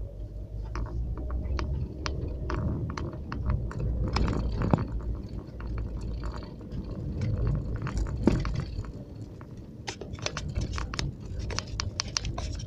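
Road noise inside a moving car: a steady low rumble of engine and tyres, with frequent small clicks and rattles from inside the cabin that come thick and fast in the last few seconds.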